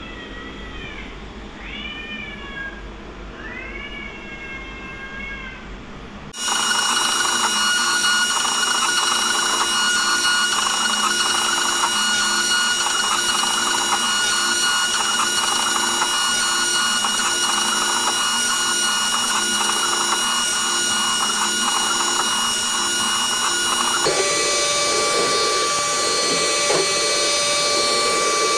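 CNC milling machine cutting an aluminium part with an end mill. It starts suddenly about six seconds in: a steady high whine over a dense, rapid crackle of cutting, and its tones shift near the end, where the 2D contour pass runs. Before the cut, four short rising-and-falling calls are heard more faintly.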